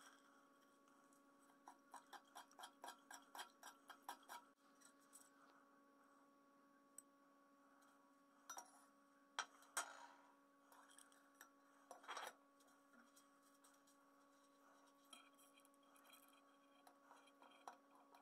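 Faint light metallic clicks and clinks from metal spoons and spring-jaw alligator clips being handled around an enamel bowl: a quick run of about four clicks a second early on, then a few separate louder clicks, over a faint steady hum.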